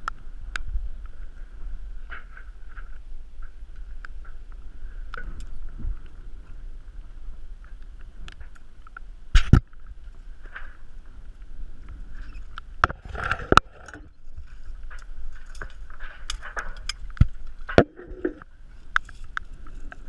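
Wind rumbling on the microphone high up the mast, with scattered knocks and clicks from the spinnaker halyard and its block being handled against the mast. The two loudest knocks come about nine and a half and thirteen and a half seconds in.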